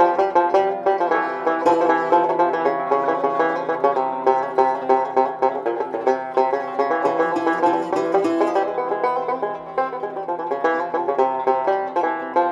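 Oud playing a quick, continuous run of plucked notes: an instrumental passage with no singing.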